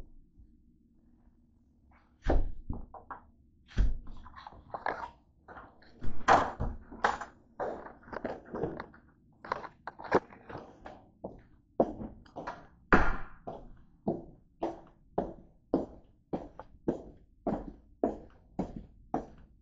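Irregular thumps and knocks, followed from about the middle by steady footsteps on a hard plank floor, about two steps a second.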